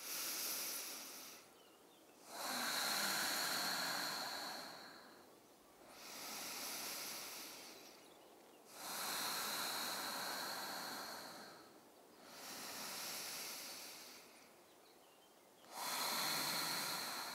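A woman's slow, deep yoga breathing: about six long, hissing breaths, alternating in and out, each lasting two to three seconds with a short pause between.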